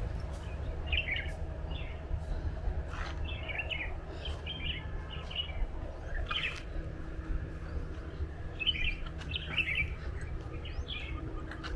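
Small birds chirping in short, quick phrases of high notes, repeated many times, over a steady low rumble.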